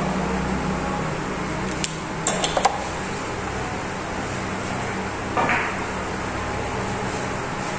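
A few sharp clicks about two seconds in, then around five and a half seconds a short knock as a carom billiard shot is played, cue striking ball and balls colliding. A steady low hum runs underneath.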